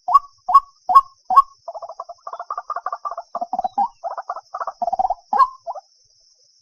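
White-breasted waterhen calling: a series of sharp, rising notes about two and a half a second, breaking into a fast run of rapid croaking notes, then a few single notes before it stops near the end.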